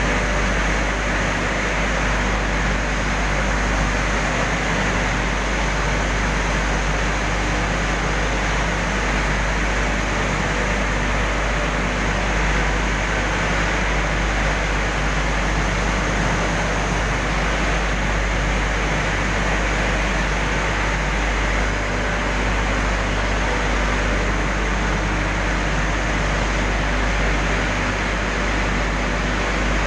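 Industrial furnace running: a steady, loud rushing noise with a constant low hum that does not change.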